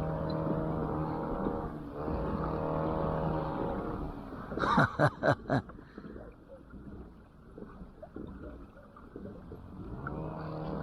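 Boat motor running with a steady hum, then cutting out a little under halfway through. Four quick, loud knocks come as it stops, and the motor starts up again near the end.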